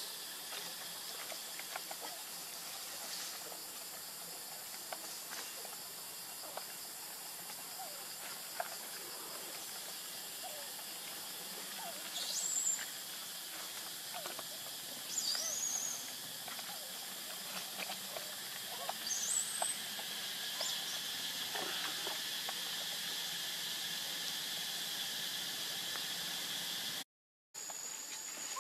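Steady outdoor hiss with three short, high-pitched squeaking calls from a baby pig-tailed macaque, each rising sharply and then levelling off. The sound cuts out for a moment near the end.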